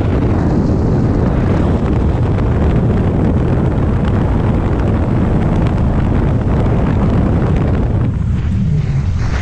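Loud slipstream wind buffeting the camera microphone at the open door of a skydiving plane, mixed with the aircraft's engine. About eight seconds in, the higher hiss drops away as the jumper leaves the aircraft.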